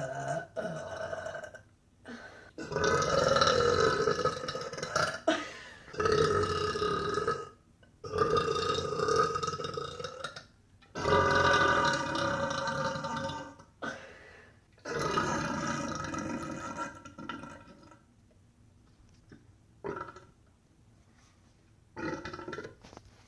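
A woman burping: a string of long, drawn-out burps, each lasting two to three seconds, one after another with short gaps, then two short little burps near the end.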